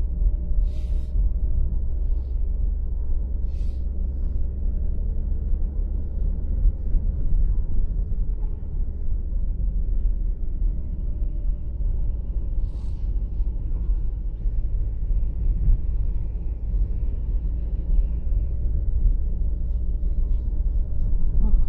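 Steady low rumble of a vehicle's engine and road noise, heard from inside the cabin while driving slowly.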